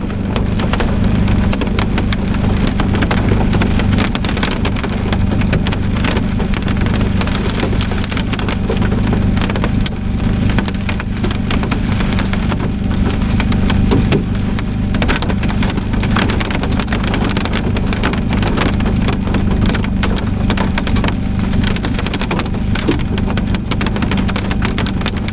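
Hail up to golf-ball size pelting a vehicle's roof and windshield, heard from inside the cabin as a dense, irregular clatter of hits. A steady low hum runs underneath.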